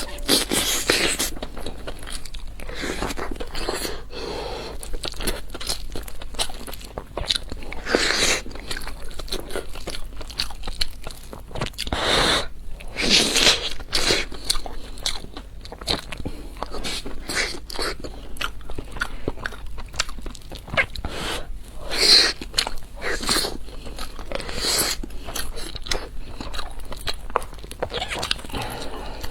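Close-miked eating sounds: repeated crunchy bites and chewing, in short irregular crunches one after another.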